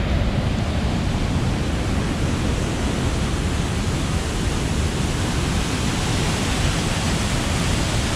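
Waterfall rushing steadily: an even, unbroken roar of falling water.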